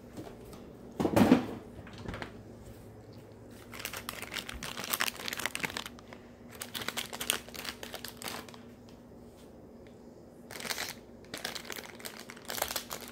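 A thump about a second in, then plastic packaging crinkling and rustling on and off as it is handled.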